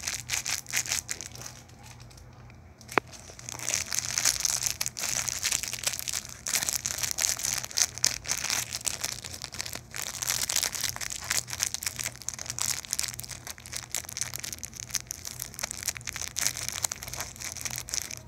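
Clear plastic wrapper crinkling and crackling as it is worked off a small squishy toy by hand. Lighter for the first few seconds, with a single sharp click about three seconds in, then continuous crinkling.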